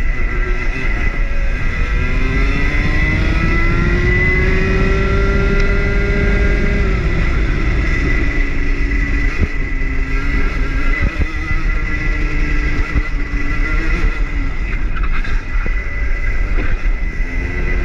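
Rotax 125 cc two-stroke kart engine heard onboard on a lap, over heavy wind and vibration rumble. Its pitch climbs slowly for several seconds as the kart accelerates, falls off about seven seconds in, holds lower through the middle, then climbs again near the end.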